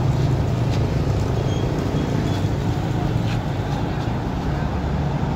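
An engine running steadily with a low, even rumble, with a few faint clicks over it.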